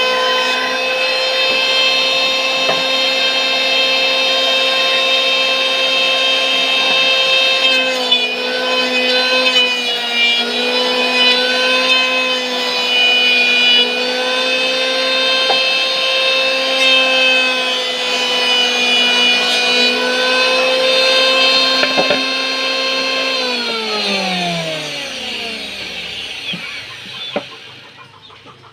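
Electric motor of a homemade wood-planing machine running with a steady hum. Its pitch sags briefly about eight to ten seconds in as it takes load from the wood. Near the end it is switched off and winds down, the pitch gliding steadily lower.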